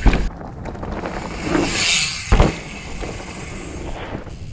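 Mountain bike riding down a rough dirt trail: tyres rattling over the ground, with heavy thumps right at the start and about two and a half seconds in, and a longer hiss just before the second thump. It goes quieter near the end.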